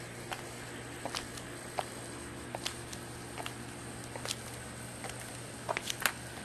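Light, irregular footsteps and small taps on the pool deck, a few louder steps about six seconds in, over a steady low hum.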